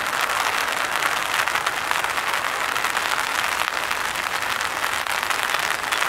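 Rain pattering steadily on an umbrella held over the camera: a dense, even hiss of countless small drop ticks.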